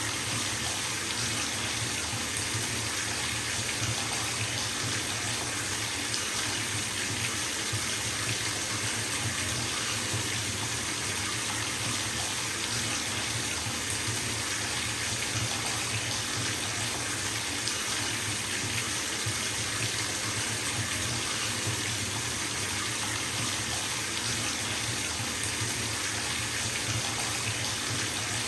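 Bathtub filling from its running tap: a steady, unbroken gush of water splashing into the tub.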